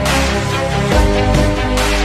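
Electronic background music with a steady beat and sustained synth chords.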